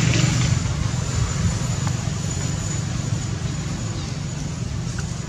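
A steady low motor hum over a constant hiss, unchanging throughout.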